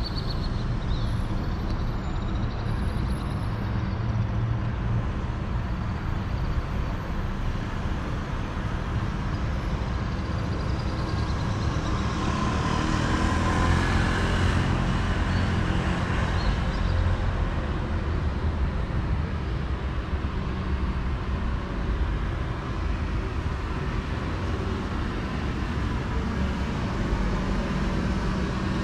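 City street ambience: a steady traffic hum with a low rumble. It swells for a few seconds about halfway through, as if a vehicle passes close by.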